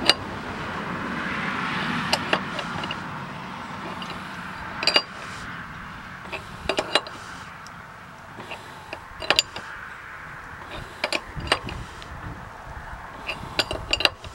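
Irregular sharp metallic clinks of a hand tool being worked against a power steering pump pulley as the pulley is pressed onto its shaft, about a dozen clicks with a few quick clusters, over a low hiss.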